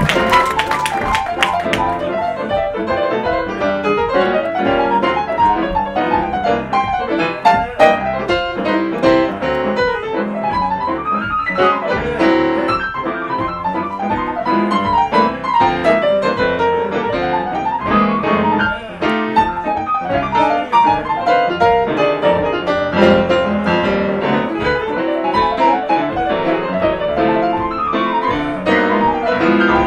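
Jazz piano duet on two grand pianos, playing dense, fast runs of notes that climb and fall.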